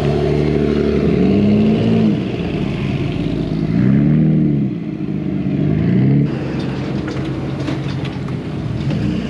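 Car engine revved in several blips, its pitch rising and falling with each one, then settling to a steady idle about six seconds in.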